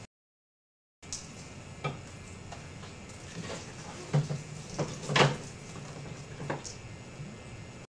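Scattered knocks and clunks as a large plastic cooler and a plastic hitch cargo box are handled, the loudest about five seconds in. The sound cuts out completely for about a second at the start and again near the end.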